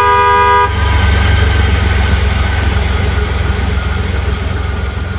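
A vehicle horn toots and stops under a second in, over a steady low engine rumble that runs on.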